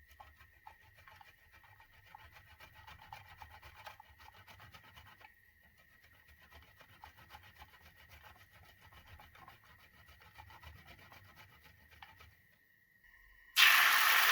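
Soft, steady rubbing and scraping of hand food preparation in the kitchen, pausing briefly about five seconds in. Near the end a loud sizzle starts abruptly, as in a hot frying pan.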